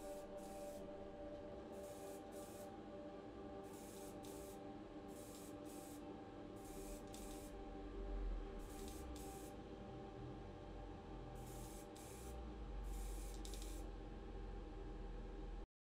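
Aerosol spray paint can spraying in short bursts: about fourteen brief hisses, mostly in quick pairs, as a small diecast car body is coated.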